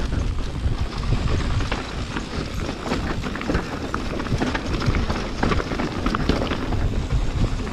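Mountain bike rolling over a natural dirt trail: irregular rattles and clicks from the tyres and bike over roots and stones, with wind rumbling on the microphone.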